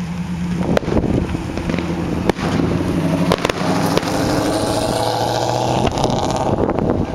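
Aerial fireworks shells bursting: several sharp bangs a second or so apart, with crackling through the middle. A steady engine hum runs underneath.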